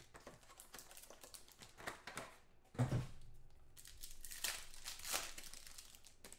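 Foil wrappers of Panini Totally Certified football card packs crinkling and tearing as the packs are handled and ripped open, in a series of short rustles. A single knock about three seconds in.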